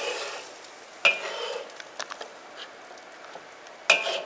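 Metal ladle scraping and stirring curry sauce in a wok, with the sauce sizzling at the edges. The ladle strikes the wok sharply twice with a short metallic ring, about a second in and near the end.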